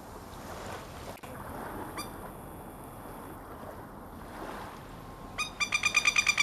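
Surf and wind wash along the shore. About five seconds in, a masked lapwing (plover) breaks into a rapid, loud alarm chatter of sharp calls, about nine a second: the angry call of a parent defending its territory.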